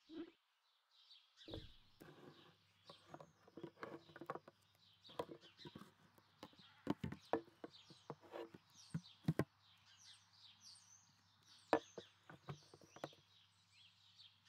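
Faint bird chirps, with a run of small knocks and clinks from tin cans and kitchen things being handled, over a low steady hum that starts about a second and a half in.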